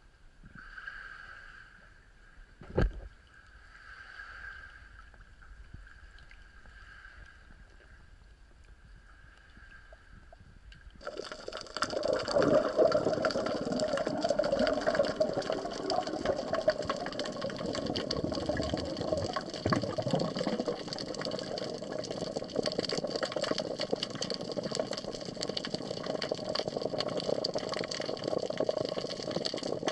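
Quiet water noise at the surface with a single sharp knock a few seconds in, then, about eleven seconds in, a sudden switch to a steady underwater rushing and bubbling as the snorkeling camera goes under.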